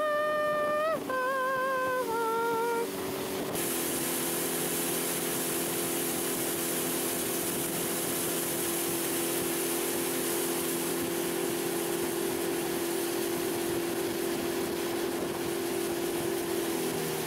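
Outboard motor of a small fishing boat running steadily under way. From about three seconds in, a loud, even rush of water and wind covers it. In the first three seconds a short, wavering tune is heard over the motor.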